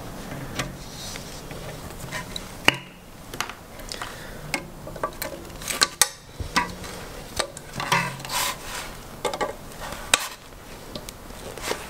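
Pliers gripping and pulling plastic protective caps off the hose fittings of an aluminium kart radiator: scattered small clicks, knocks and rubbing of plastic and metal.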